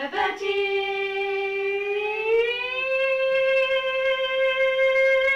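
Girls singing a long held note with no accompaniment; about two seconds in the pitch slides up to a higher note that is held steadily.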